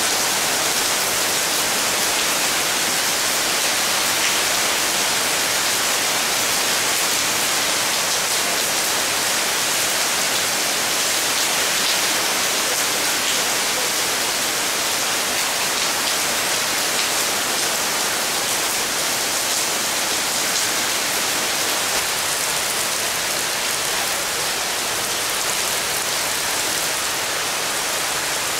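Heavy monsoon rain pouring down, a steady, even hiss that holds at one level throughout.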